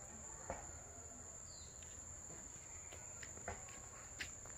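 Insects keeping up a steady high-pitched buzz, with a few faint taps.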